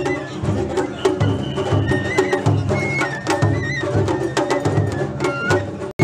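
Japanese festival float music (matsuri bayashi): taiko drums beat a steady rhythm under a high flute melody, with sharp clacks of percussion throughout. The music drops out for an instant near the end.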